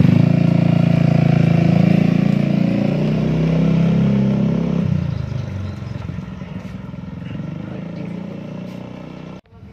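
Yamaha XMAX300 scooter's single-cylinder engine running loud through a newly fitted PR2 aftermarket exhaust. About five seconds in the sound drops off, and the engine is quieter as the scooter rides away.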